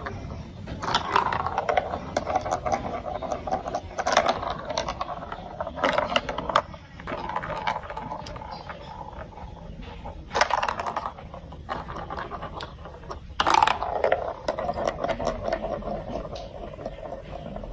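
Marbles rolling and rattling down a plastic building-block marble track, with sharp clicks and louder clatters as they drop through pieces and hit the track, about five times.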